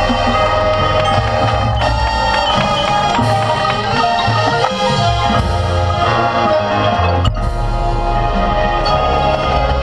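Marching band playing its competition field show: sustained wind chords over a steady low bass, with percussion strokes.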